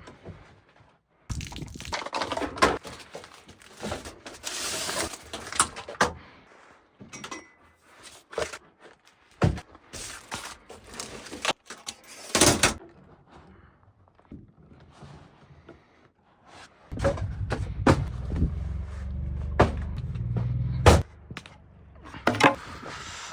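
A string of knocks, thuds and rustling handling noises, with a low rumble for a few seconds near the end.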